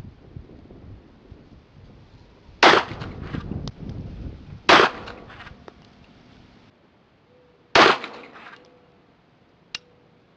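Wiener Fabrik Little Tom .32 ACP pistol firing three shots, about two and three seconds apart, each trailing off over about a second. A sharp click near the end.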